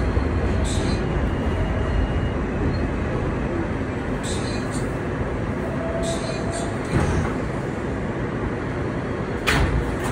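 New York City subway J train running: a steady low rumble with a few sharp clicks and rattles, the loudest near the end.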